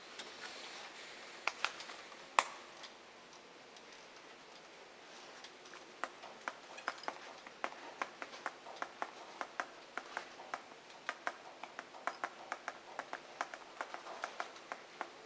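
Faint, light clicks and taps indoors: a couple of sharper knocks early on, then from about six seconds in a steady run of small clicks, roughly three a second.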